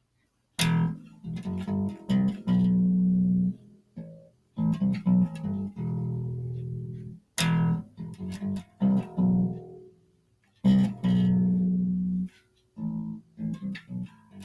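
Music: plucked guitar with bass, played in short phrases with brief gaps between them, starting about half a second in.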